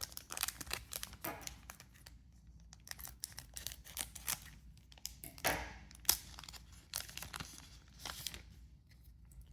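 Foil booster pack being torn open and crinkled: a dense, irregular string of crackles and tearing sounds.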